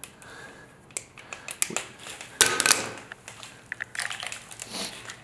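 Hands handling electrical wire and small tools: irregular clicks, crinkling and rubbing as the red and black submersible pump cable wires are twisted together under a wire nut and the cable is moved about. A sharper crunching click comes about two and a half seconds in, with a quick run of clicks near the end.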